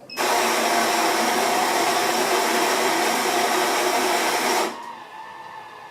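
Built-in burr grinder of a Rex Royal S200 automatic espresso machine grinding the beans for a shot, a loud steady motor noise lasting about four and a half seconds that stops suddenly. A much quieter steady machine hum follows.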